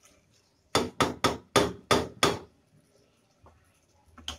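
A wooden spatula knocked against the rim of a metal pressure cooker, about seven quick sharp knocks, then a single knock near the end.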